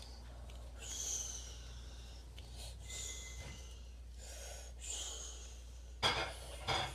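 A person breathing close to the microphone, soft breaths about every two seconds, then two louder, sharper exhales near the end.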